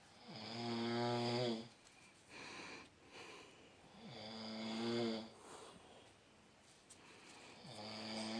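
A sleeping person snoring: three long, pitched snores, each growing louder for about a second and then cutting off suddenly, roughly every four seconds, with a softer breath between them.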